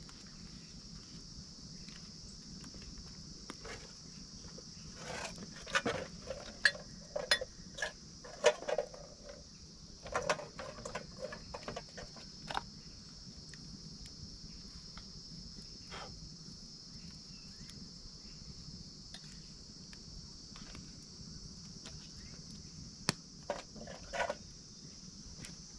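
Steady high chirring of crickets and other insects, with scattered clinks and knocks of camp cookware and utensils as coffee is made. The clinks come in a busy run from about five seconds in to about thirteen, then once more briefly near the end.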